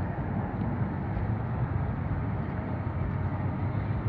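Helicopter running on its landing pad: a steady engine and rotor noise with a low hum.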